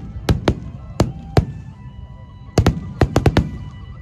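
Fireworks shells bursting overhead: about ten sharp bangs, several spaced out early on and a quick run of them bunched together past the middle.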